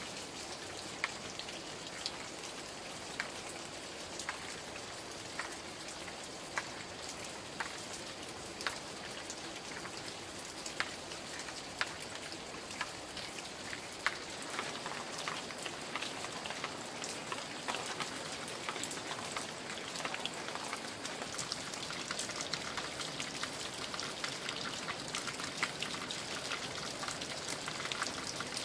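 Steady rain falling in forest undergrowth, with single drops landing close by about every second or so.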